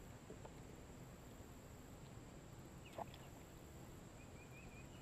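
Near silence: faint open-air background, with one short chirp about three seconds in and a faint high warble near the end.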